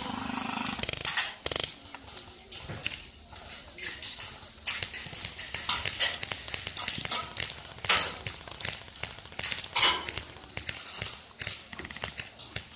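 Scattered sharp clicks and cracks at irregular intervals, with a hiss during the first second or so.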